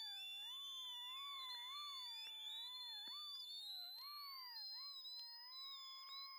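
Faint electronic background music: a single wavering tone that slides up and down about once a second, over steady high tones.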